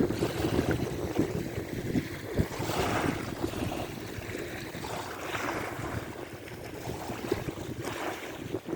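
Small waves washing on a reservoir shore, a hissing wash swelling about every two to three seconds, with wind buffeting the microphone.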